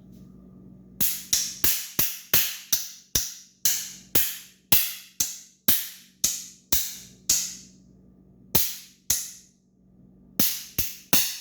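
A Hand Blasters trick noise maker being smacked in the hand again and again, giving a quick run of about twenty sharp, loud pops at two or three a second, with short pauses near the end.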